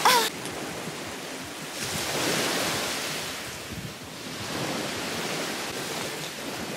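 Small surf washing onto a sandy beach, swelling and ebbing twice, with wind on the microphone. A short high cry sounds at the very start.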